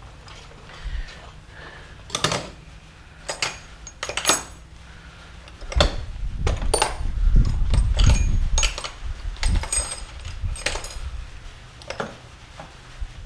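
Metal hand tools and engine parts clinking and clanking during an engine teardown. There are separate sharp metallic knocks that ring briefly, then a busier stretch of clattering and low rumbling handling in the middle.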